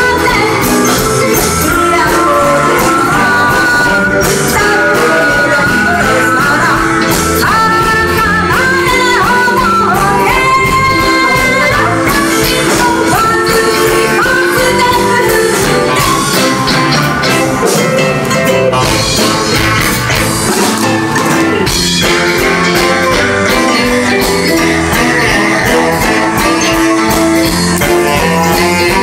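Live band playing 1960s-style girl-group rock and roll, with female vocal group singing over drums and electric guitar.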